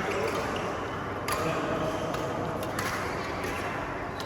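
Badminton rally: a racket strikes the shuttlecock with a sharp hit a little over a second in, then a fainter hit near three seconds, against the hall's background noise.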